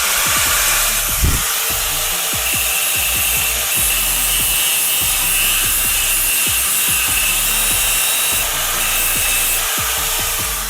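Angle grinder cutting metal: a steady, harsh, hissing grind with a faint high whine, starting and stopping abruptly.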